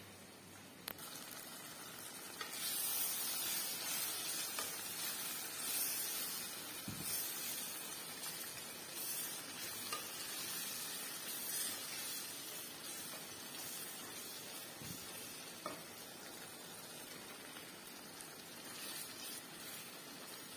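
Spicy alamang (shrimp paste) sauce sizzling and bubbling in a pot as it is stirred with a wooden spoon, starting a couple of seconds in, with a few light knocks.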